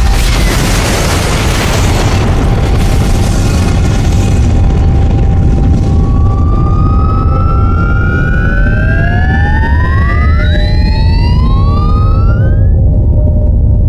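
Film sound effect of a huge explosion: a loud blast and a long, deep rumble. From about six seconds in, several rising whistling tones climb over the rumble and cut off near the end.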